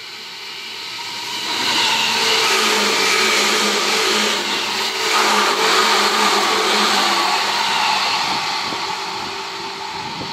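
Seibu 10000 series 'New Red Arrow' limited express electric train passing at speed. A rumble of wheels on rail with a steady whine builds as it approaches, is loudest for about six seconds as the cars go by, then fades as it draws away.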